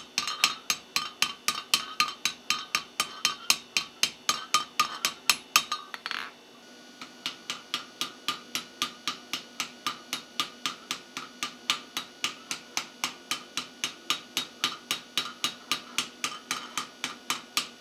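Hand hammer striking the red-hot end of a steel tube resting in a notched block on the anvil: a fast, even run of sharp metallic blows, about four a second, with a short break about six seconds in. The tube is being forged into the axe handle's ferrule.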